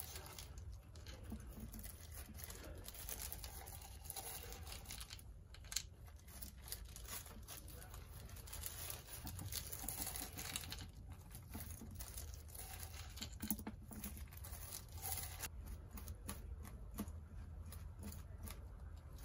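Plastic disposable gloves crinkling and thin stained wooden sticks clicking against each other and a paper cup as they are shaken out onto a paper towel and spread by hand, with scattered irregular clicks.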